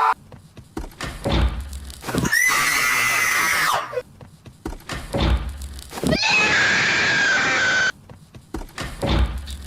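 Two substituted sound effects standing in for a cartoon character's scream, each lasting about two seconds. The first has a high tone that rises and then holds; the second has a tone that falls slightly. Dull thumps come between them.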